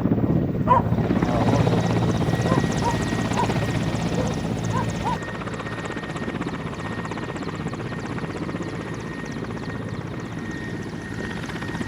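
Helicopter's engine and rotor running steadily, with a fast even blade beat under a thin steady whine. It gets somewhat quieter about five seconds in.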